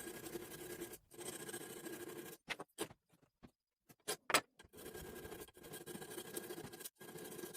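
Faint steady background hum, cut off abruptly several times, with a few short scraping strokes near the middle.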